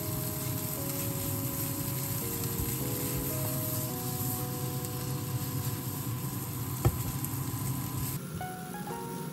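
Minced meat, chopped green onion and chili flakes sizzling in a nonstick wok as they are stirred with a spoon, with the scrape of the stirring. One sharp knock about seven seconds in.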